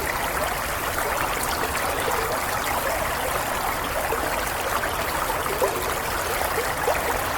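Stream water running steadily, a continuous babble with many small gurgles.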